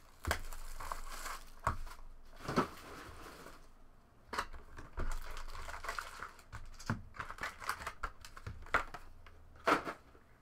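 Plastic wrapping and foil trading card packs crinkling as a cardboard hobby box is opened and its packs are pulled out and set down, with several sharp taps scattered throughout.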